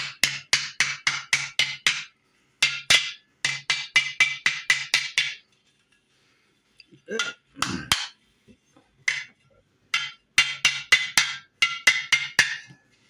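A hammer tapping a steel half-round doming punch to dome a silver buckle in a dapping block. The blows are sharp and ringing, about four a second, in two runs with a pause of a few seconds between them that holds a few softer, duller knocks.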